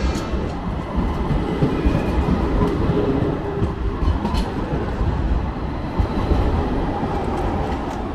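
Loud, steady rumbling of a passing street tram.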